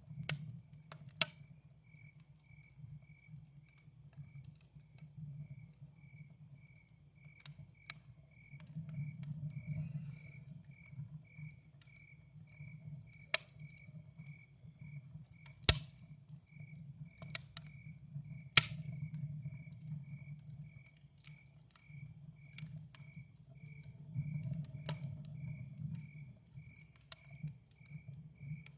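Campfire crackling, with sharp pops every few seconds, the loudest about halfway through. A cricket chirps steadily behind it, just under two chirps a second.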